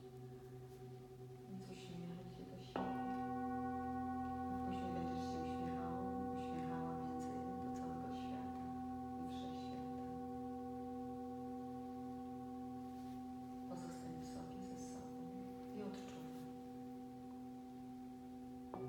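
Singing bowls ringing: a bowl is struck about three seconds in and rings on with clear steady tones that slowly fade, over another bowl still ringing, and a further bowl is struck near the end.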